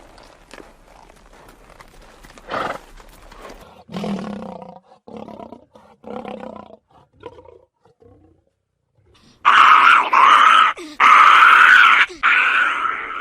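A large animal calling: a few shorter, lower calls, then from about two-thirds of the way in a run of loud, drawn-out calls with a wavering pitch, broken by short pauses.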